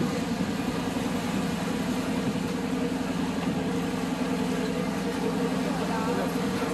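A passenger ferry's engine running with a steady, even drone.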